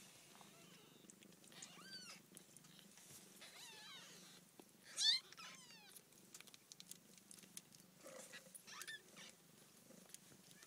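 Two-week-old F1 Savannah kittens mewing: a series of short, high, thin mews that bend in pitch, the loudest about five seconds in and a last one near the end.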